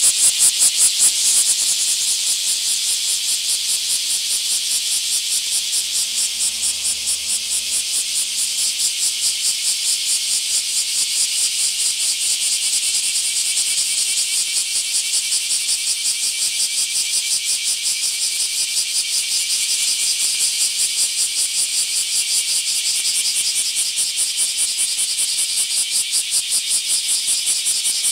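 Chorus of many bear cicadas (kumazemi, Cryptotympana facialis) singing at once: a loud, dense buzz that pulses rapidly and keeps going without a break.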